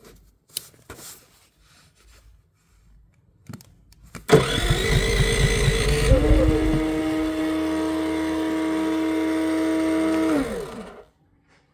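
Small portable generator engine starting suddenly, coming up to speed and running steadily for about six seconds, then stopping with its pitch falling as it winds down.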